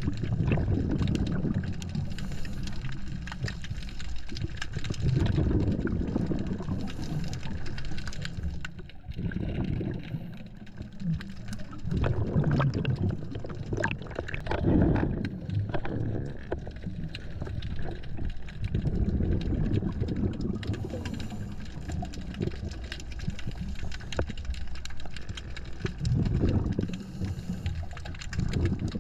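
Underwater sound of a scuba diver's exhaled bubbles rushing past the camera in low, muffled bursts every few seconds.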